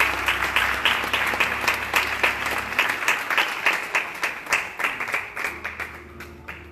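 Congregation applauding, a dense patter of hand claps that thins out and fades away about six seconds in.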